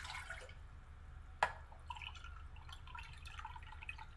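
Water poured from a drinking glass into a stainless steel saucepan, the pour ending just after the start and trailing off into faint drips. A single sharp knock about a second and a half in.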